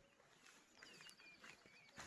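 Faint birdsong: short whistled chirps, with a quick high trill of evenly repeated notes starting a little under a second in and lasting about a second.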